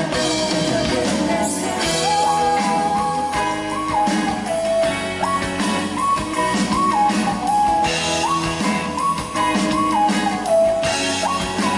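A live band plays an instrumental passage of an indie-pop song: a clear lead melody steps up and down over guitar and drums.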